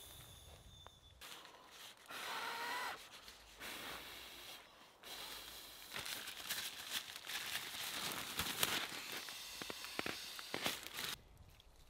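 Nylon stuff sacks and inflatable camping gear rustling and crinkling as they are handled, with scattered small clicks and knocks; the rustling gets busier and louder about halfway through and stops shortly before the end.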